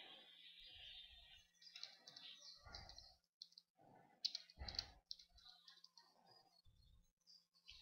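Faint keystrokes on a computer keyboard, typing a short phrase in several quick bursts.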